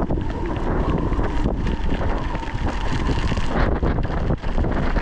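Strong blizzard wind buffeting the microphone: a loud, dense rush with heavy low rumbling, and a faint steady whistling tone for the first few seconds.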